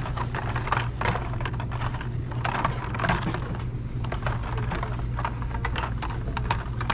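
Carded Matchbox die-cast cars in plastic blister packs clicking and rattling against each other as a hand flips through them on a store peg, in quick irregular clatters, over a steady low hum.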